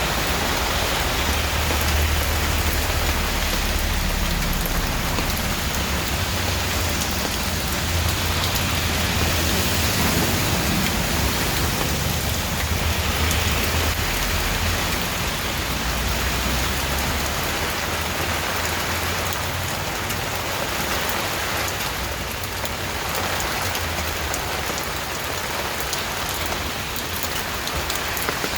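Steady, heavy rain falling and splashing on surfaces, an even hiss of drops. A low rumble runs underneath for the first half or so, then fades.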